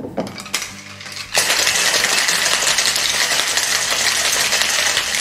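Ice rattling hard inside a stainless steel cobbler cocktail shaker being shaken briskly, starting about a second and a half in. Before it, a few metal clicks as the shaker's cap is pressed on.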